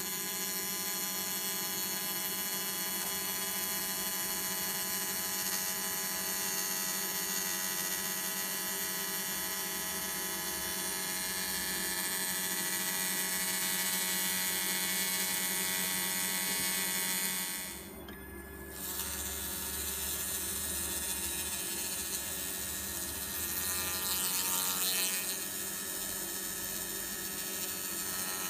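Pulsed laser cleaning on weld seams: a steady, high buzzing with many overtones as the laser works the metal. It breaks off briefly about eighteen seconds in, then resumes.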